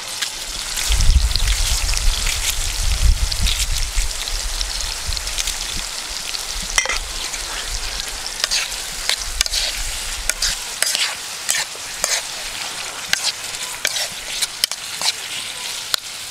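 Chopped tomatoes, onion, green beans and peppers sizzling in hot oil in a metal pot, with a metal spoon scraping and clinking against the pot as it is stirred. A low rumble runs under it for roughly the first ten seconds.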